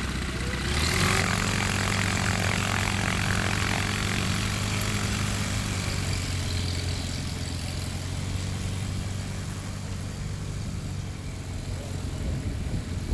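Single-engine ultralight aircraft's engine and propeller running on a grass strip. About a second in the engine speeds up with a rush of propeller noise as the plane taxis off, then it runs steadily and slowly grows fainter.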